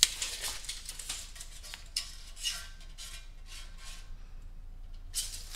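Steel tape measure being pulled out and handled, with light metallic clicks and rattles of the blade.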